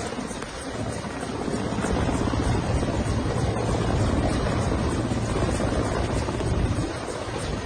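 Helicopter rotor noise, a steady fast chopping flutter under a dense rush of sound, a little louder from about two seconds in.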